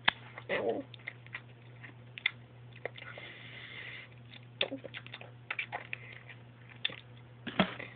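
Small plastic toys and props being handled: scattered light clicks and taps, with a soft hiss about three seconds in.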